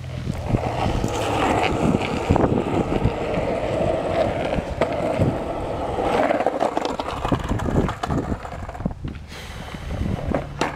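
Continuous rough crunching and rumbling of travel over a packed dirt and gravel path, with many small clicks, easing off briefly about nine seconds in; some wind on the microphone.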